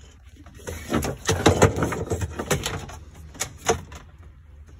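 Irregular clicks, knocks and rustling as a wiring harness is handled and pushed into place inside a jet ski hull, with a short flurry about a second in and fewer knocks near the end.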